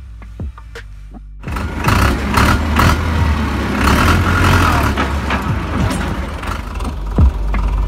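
Background music for the first second and a half, then a sudden switch to a Farmtrac 6055 tractor running on the move, heard from the driver's seat as a loud, dense rumble and rush that holds for about five seconds before easing near the end.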